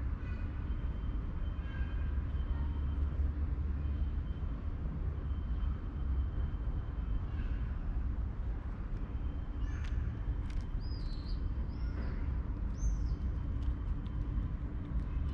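Steady low rumble of distant city traffic, with a few short, high bird chirps about two-thirds of the way through.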